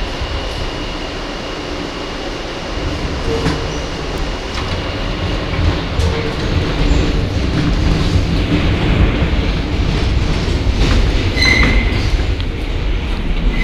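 R160 subway car running at speed through a tunnel: a steady low rumble with wheel clicks, growing louder after about eight seconds, with short high wheel squeals near the end.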